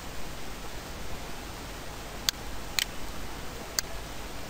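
Three sharp computer mouse clicks, a little over two seconds in, then half a second and a second apart, over a steady microphone hiss.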